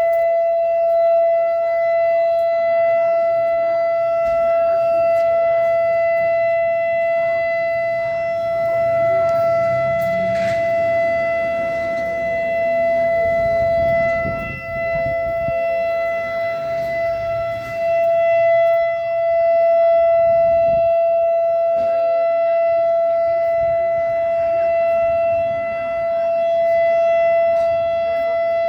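Outdoor warning siren sounding a loud, steady tone at one pitch with ringing overtones, as in a monthly siren test.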